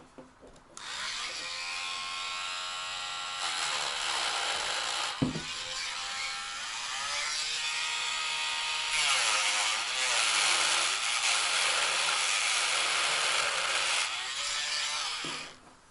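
Dremel rotary tool with a grinding stone running and grinding flat the protruding wafers of a VW Golf 3 door lock cylinder so the lock will turn with a different key. Its whine wavers in pitch as the stone bears on the metal. It starts about a second in and stops near the end, with a short knock about five seconds in.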